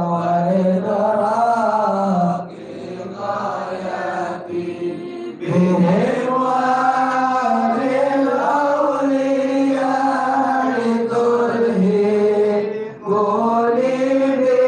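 A man's voice chanting an Islamic devotional recitation in slow melodic phrases, holding long notes. The chant grows quieter about two seconds in and returns to full strength around the middle.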